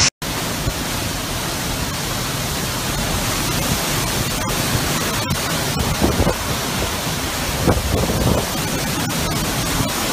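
Hurricane-force wind and driving rain, a dense, steady rushing noise that follows a brief dropout at the start.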